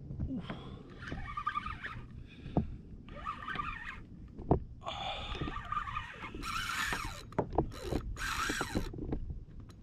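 Fishing reel working in about nine short bursts of whirring while a hooked fish is played on a hard-bent rod, with a few sharp knocks in between.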